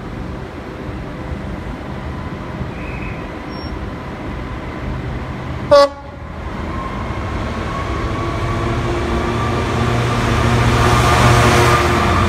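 Class 66 diesel locomotive's two-stroke V12 engine growing steadily louder as it approaches and draws alongside hauling JNA wagons, loudest near the end. About six seconds in, a short, sharp train horn toot.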